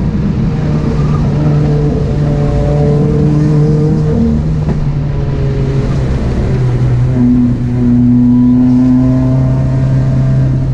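2018 Subaru WRX's turbocharged 2.0-litre flat-four, with a catless J-pipe and custom 3-inch exhaust, pulling hard on a track run. The revs hold fairly steady, with slight dips in pitch about four and seven seconds in.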